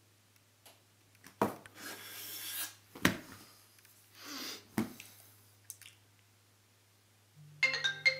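A few soft rustles and sharp clicks of handling over a low steady hum. Near the end a bright marimba-like melody of quick plucked notes starts.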